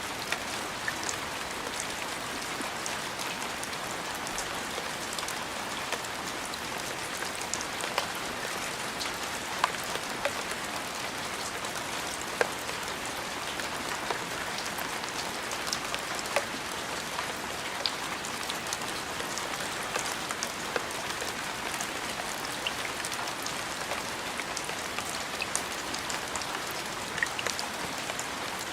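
Steady rain: an even hiss with scattered louder single drops ticking sharply against a surface.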